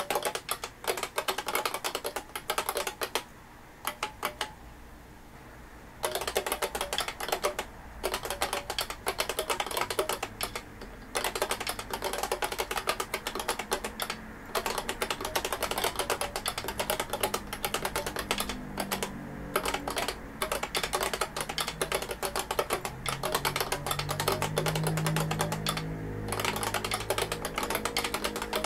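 IBM Beamspring 5251 keyboard being typed on: runs of rapid, sharp key clicks broken by short pauses, with a gap of about two seconds a few seconds in.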